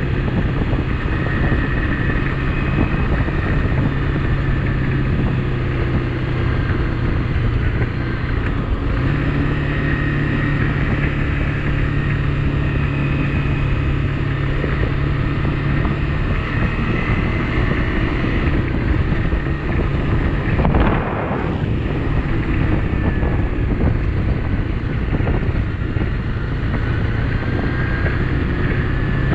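Honda CRF250 Rally's single-cylinder four-stroke engine running steadily under way, with wind on the microphone. The engine note breaks briefly about a third of the way in, and there is one short knock about two-thirds of the way through.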